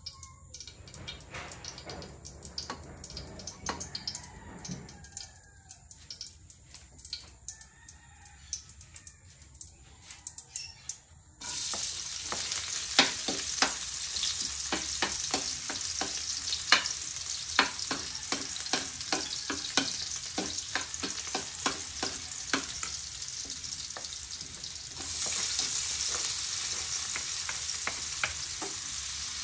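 Quiet, with scattered small clicks, until about a third of the way in, when food dropped into hot oil in a wok starts a steady sizzle. Chopped garlic and onion fry as a metal spoon scrapes and taps against the wok in quick, irregular strokes. The sizzle gets louder a few seconds before the end.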